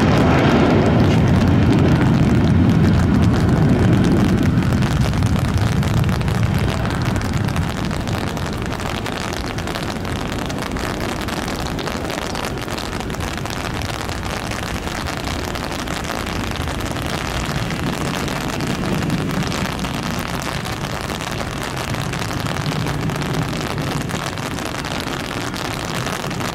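Jet engines of a Boeing 737 at takeoff power: a loud rumbling roar during the takeoff roll and lift-off, easing after about six seconds into a steadier, softer rumble as the jet climbs away.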